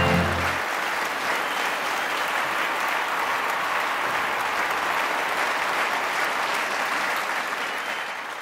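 The last chord of the music stops about half a second in, then a large audience applauds steadily, tapering off near the end.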